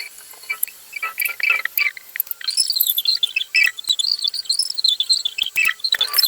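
A small songbird chirping and warbling in quick, wavering high phrases, with a few sharp clicks near the end.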